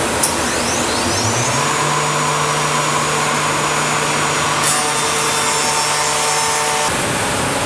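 CNC machining centre's router spindle cutting a wooden door, over the steady rush of dust extraction. A whine rises about a second in and holds steady while it cuts, then drops away near the end.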